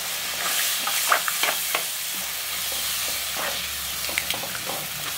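Curry masala loosened with tamarind water sizzling in a hot kadai while a slotted metal spatula stirs it, scraping the pan with scattered light clicks over a steady hiss.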